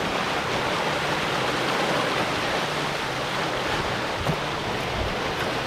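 Wake water rushing and churning past the hull of a sailing boat under way, a steady hiss.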